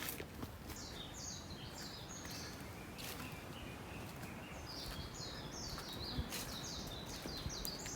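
A small songbird singing two runs of short, high, downward-slurred notes, about four notes a second, the second run longer. Under it is a steady low background hiss.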